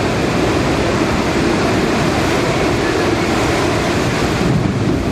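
Hurricane wind and heavy rain making a loud, steady roar.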